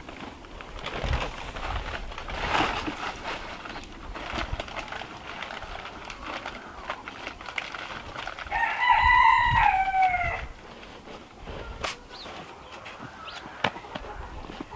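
A rooster crowing once, a stepped call of about two seconds that drops in pitch at the end, about halfway through. Scattered crunching and knocking noises around it.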